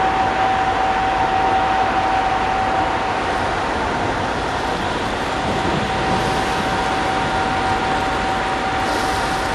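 Steady drone of a Viking Line car ferry's engines and ventilation on the open deck: an even rush with a constant mid-pitched hum running through it.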